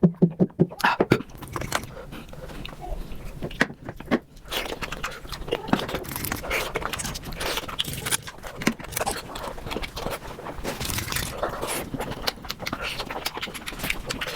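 Close-miked eating of bamboo shoots, played back sped up: a dense, rapid stream of crunching and chewing clicks.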